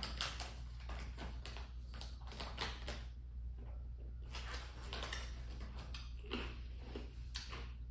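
Close-up mouth sounds of a hard candy being sucked: small irregular clicks and wet smacks in spurts as the candy moves against the teeth.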